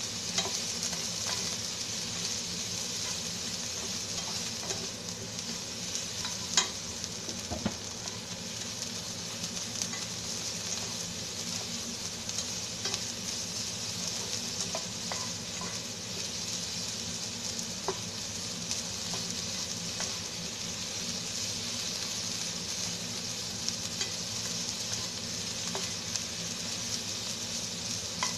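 Broccoli and rice sizzling in a hot frying pan as they are stir-fried with a spatula: a steady frying hiss with occasional sharp clicks.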